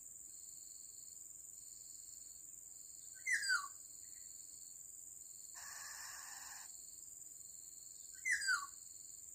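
Black-naped oriole lure call: two identical short, nasal calls sliding down in pitch, about five seconds apart, over a steady high drone of insects and a softer pulsing insect chirp. A brief hiss lasting about a second falls between the two calls.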